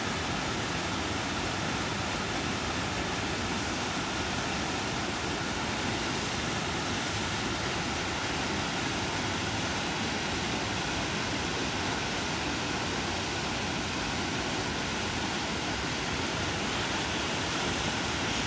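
Waterfall and whitewater rushing: a steady, even roar of falling water with no breaks.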